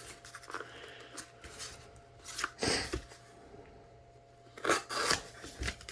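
Packaging being handled and worked open by hand: scattered rustles and clicks, with louder knocks about two and a half seconds in and again near five seconds.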